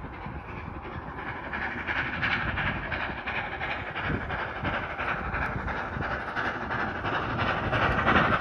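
Steam train hauled by locomotives 3265 and 3526 running, with steam hiss and wheel noise, growing steadily louder.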